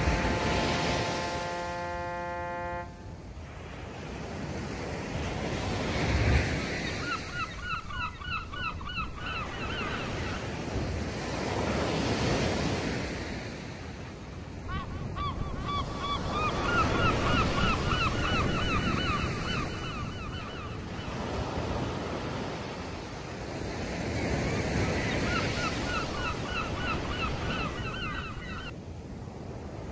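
Sea waves washing in, swelling and falling every few seconds, with gulls calling in three runs of rapid repeated notes. A horn holding one steady note sounds over the first few seconds and stops about three seconds in.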